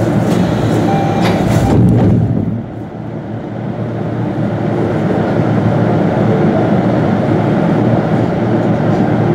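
Steady low hum in a Chiba Urban Monorail 0-type car standing at a station. A few knocks come in the first two seconds. About two and a half seconds in the sound suddenly turns duller and quieter, then builds back up.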